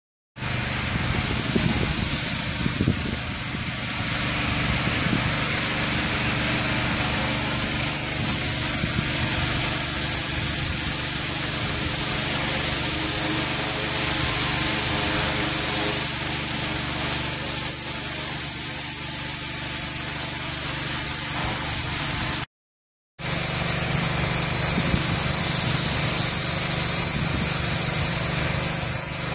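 A small engine-driven power sprayer running steadily, a constant low engine hum under a loud high hiss of spray. It drops out for about half a second about three-quarters of the way through, then resumes unchanged.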